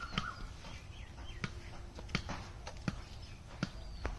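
Birds chirping, with a series of short sharp taps or clicks, about one every three-quarters of a second.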